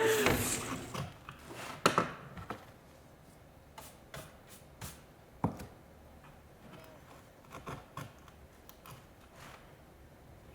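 Handling noise at a printmaking workbench: a short scraping rustle at the start, then scattered light taps and clicks of tools and paper, about ten of them, spaced irregularly.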